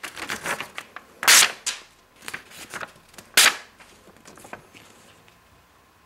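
Emerson Persian folding knife's blade slicing through a sheet of paper in a sharpness test. There are two loud crisp slices, about a second and a half and three and a half seconds in, with smaller crackles of paper between them.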